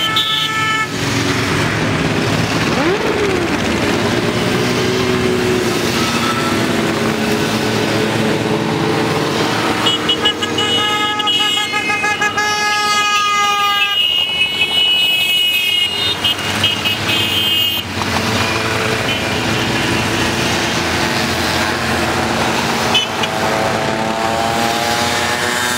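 A procession of motorcycles riding past one after another, engines running. Horns sound steadily for several seconds about halfway through, and an engine revs up near the end.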